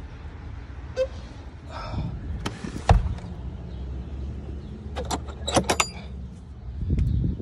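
Metal latch on a wooden gate being handled, with sharp clicks and clinks as it is worked. There is a single loud knock about three seconds in, all over a steady low rumble.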